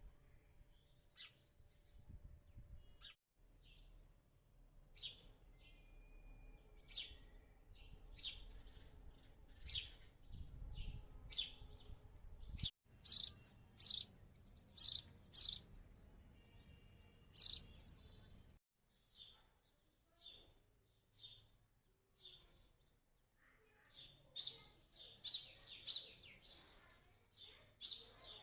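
House sparrows chirping: a run of short, sharp chirps repeated irregularly, one to three a second, with a few sudden breaks where the recording cuts.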